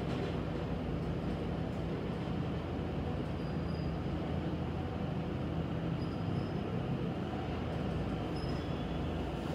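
Schindler hydraulic elevator car travelling down, with a steady low hum and rumble of the ride heard inside the cab.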